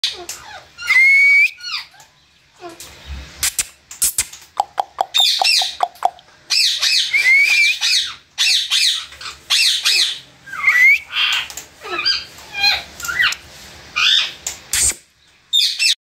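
Ring-necked parakeets calling: a loud string of harsh squawks, chirps and whistled rising and falling notes, with short pauses between bouts.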